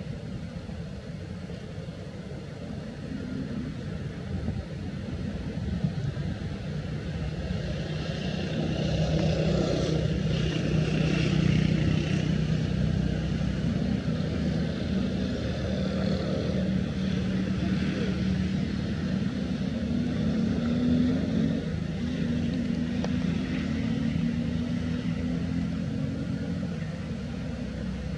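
A motor engine running steadily, with a low rumble that grows louder about eight seconds in and then holds.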